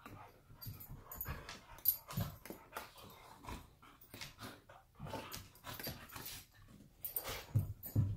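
Two dogs play-fighting at close range: a run of short, irregular dog sounds and scuffles, loudest about two seconds in and again near the end.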